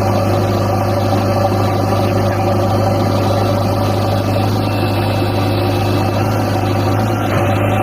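Diesel engine idling steadily, a constant deep hum with no revving.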